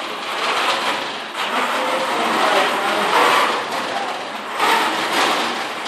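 FIRST Robotics Competition robot driving along, its electric drive motors, gearboxes and wheels making a steady rushing noise that swells and eases.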